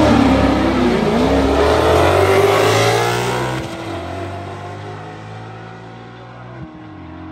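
Two drag-racing cars launching side by side and accelerating hard down the strip, their engines revving with rising pitch. The sound is loud for about three and a half seconds, then fades as the cars pull away.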